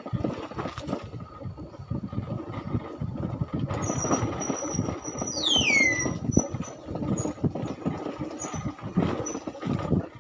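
Vehicle travelling along a bumpy dirt lane, with a choppy rumble and rattle throughout. A thin high whine comes in about four seconds in, and around the middle a high squeal slides steeply down in pitch.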